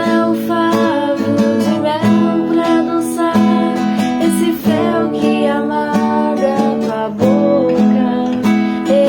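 Music: acoustic guitar strumming chords in regular strokes, under a melody line that glides up and down.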